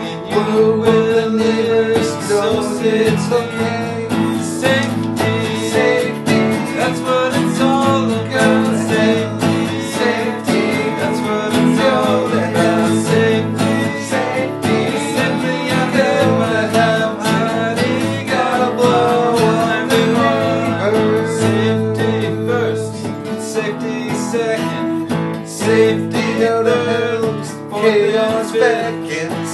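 Two acoustic guitars strummed together in a simple country-style song, with men singing along.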